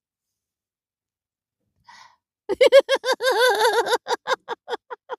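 A person's voiced laugh starting about halfway in: a quick run of high 'ha' pulses, loud at first and then trailing off into shorter, fainter pulses, done as a deliberate laughing exercise in a breathing practice.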